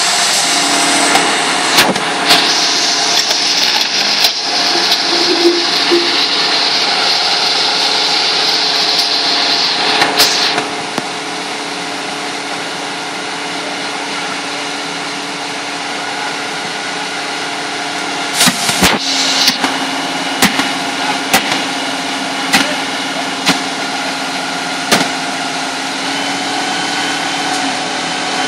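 Fire engine's diesel engine and pump running steadily at idle, a drone with several steady tones. A strong hiss starts about two seconds in and stops about ten seconds in, and short clicks of handling noise recur throughout.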